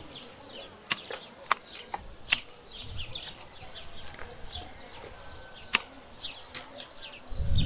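Bypass pruning shears snipping peach twigs: several sharp, separate clicks, with small birds chirping throughout. A low rumble begins near the end.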